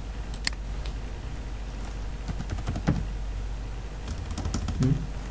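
Computer keyboard and mouse clicks in scattered runs, with two heavier knocks, over a steady low hum.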